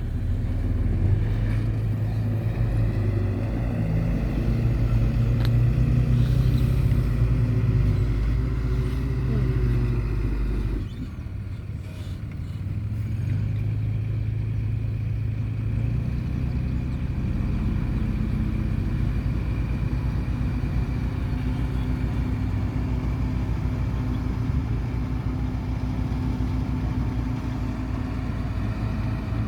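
An engine running continuously with a low, pulsing drone. It dips abruptly about eleven seconds in, then builds back to a steady run.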